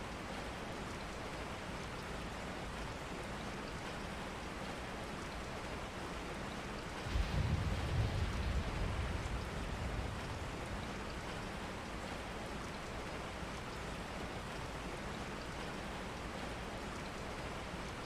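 Steady rain, an even hiss of falling water. About seven seconds in, a low rumble rises suddenly and fades over about three seconds.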